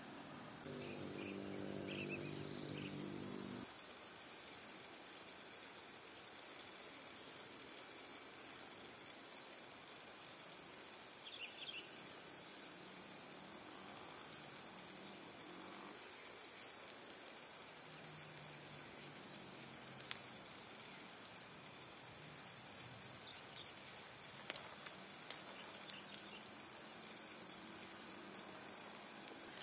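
A steady, high-pitched chorus of insects chirping in fast even pulses. Small crackles come through in the second half as the dry pine needles catch fire, and a low hum sounds in the first few seconds.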